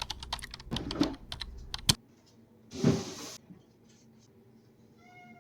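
A quick run of sharp clicks and taps for about two seconds, then a short hissing noise. Near the end a domestic cat begins to meow.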